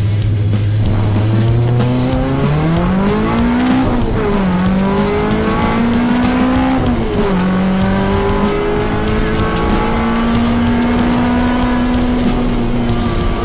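Fiat Seicento rally car's engine heard inside the cabin: held at steady revs on the start line, then launching about a second and a half in. The revs rise through the gears with two upshifts, the pitch dropping about four and seven seconds in, then the engine runs on at high, fairly steady revs.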